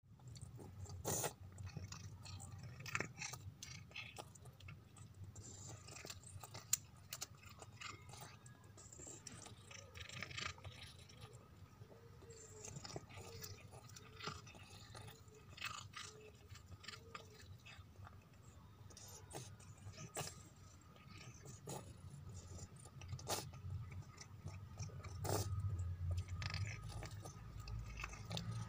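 Ginger cat chewing and crunching food, with irregular sharp crunches and clicks of its bites.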